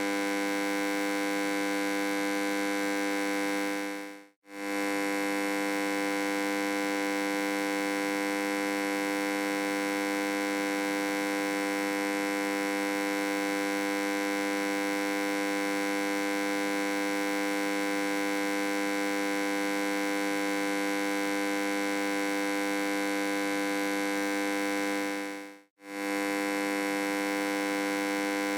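Electric hum: a steady buzzing drone with many overtones, unchanging in pitch. It fades out to silence for a moment and straight back in about four seconds in, and again near the end.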